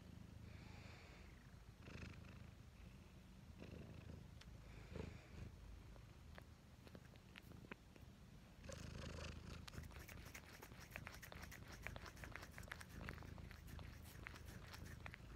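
Domestic cat purring close to the microphone, a steady low rumble, with a quick patter of soft clicks and rustles from about nine seconds in.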